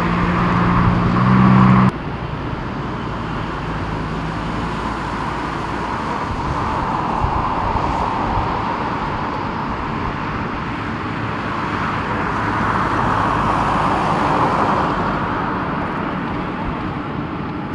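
Jet engines of a Boeing 747-400 at taxi power, a steady rush that grows louder as the jumbo jet rolls closer, loudest about three-quarters of the way through, then eases. At the start a louder sound with low steady tones cuts off abruptly about two seconds in.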